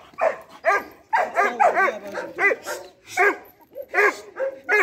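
Dog barking repeatedly, a dozen or so short barks in quick bursts.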